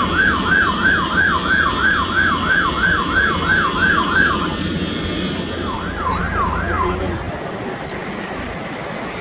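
Airbus A350-900's Rolls-Royce Trent XWB engines at takeoff power: a low rumble with a steady high whine, dropping away about seven seconds in. Over it, a loud chirp sweeps down and up about three times a second, stops after about four seconds, and returns briefly for three sweeps near seven seconds.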